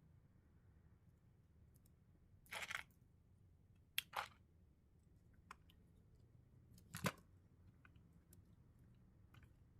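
Near silence broken by a few brief clicks and crackles from handling small parts. There is a crackle about two and a half seconds in, two sharp clicks around four seconds in, and a louder click with a dull knock about seven seconds in.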